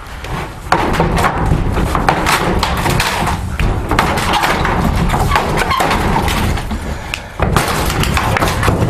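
Wooden wall boards being struck and knocked loose from the studs: many thumps and knocks in quick succession, with a short lull near the end.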